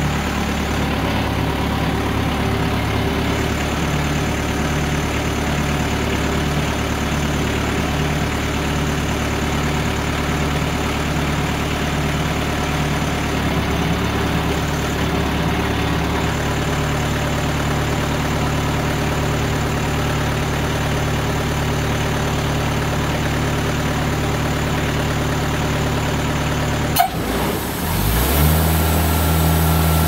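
TimberKing 2000 bandsaw sawmill's engine idling steadily. About 27 seconds in there is a sharp click, then the engine note shifts up and settles at a higher, slightly louder steady pitch.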